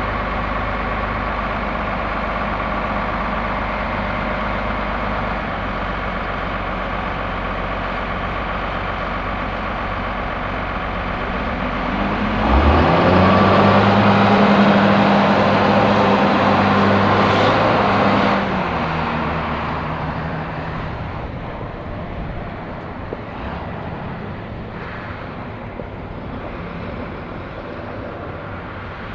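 Heavy road vehicle's engine running with a low rumble. About twelve seconds in, it revs up loudly and holds a steady engine note for about six seconds as it goes by, then fades away into general traffic noise.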